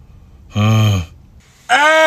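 A man groaning and crying out in pain, his mouth burning from an extremely hot Carolina Reaper and scorpion pepper dish. A short low groan comes about half a second in, then a louder, higher-pitched cry near the end.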